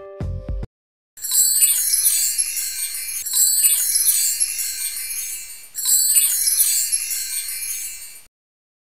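A music track ends within the first second. About a second in, a high, glittering chime sound effect begins and plays three times in a row, about two and a half seconds apart, then cuts off suddenly near the end.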